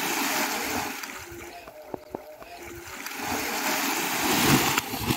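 Heavy water splashing as boys jump into an open well and thrash in the water. It comes in two loud spells: one fading over the first second, and another building from about three seconds in and cutting off abruptly near the end.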